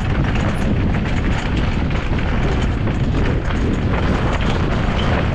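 Mountain bike descending a rough trail at speed: wind rushing over the microphone, with steady tyre rumble and frequent knocks and rattles from the bike over the ground.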